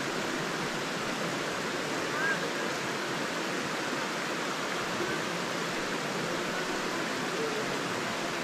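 Shallow, rocky jungle stream running over stones: a steady, even rush of water.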